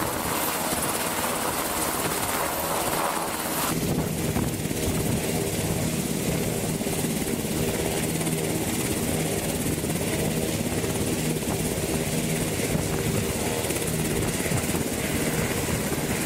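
Navy H-60 Seahawk helicopter hovering low, its rotor and turbine engines running steadily and loudly. About four seconds in the sound turns lower and fuller.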